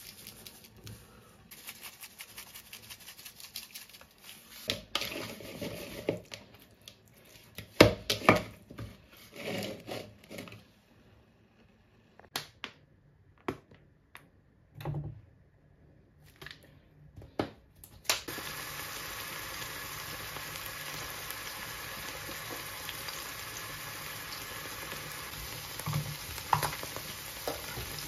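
Kitchen handling: light shaking, clicks and knocks of a bowl, bottle and pan. About two-thirds of the way in, a steak starts frying in hot oil in a frying pan, a steady sizzle with a few louder pops near the end.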